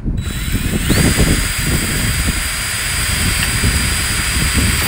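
DEWALT cordless drill drilling a rivet hole through steel building trim. The motor's whine climbs during the first second as it spins up, then holds steady while the bit cuts the sheet steel.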